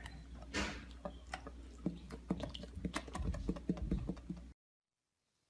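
Small irregular clicks and wet smacks of a pet chewing cheese, over a low hum. The sound cuts off abruptly about four and a half seconds in.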